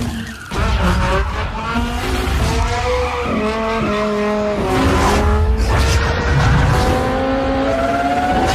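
Race car engine revving and accelerating, its pitch climbing steadily through the second half, then cutting off at the end.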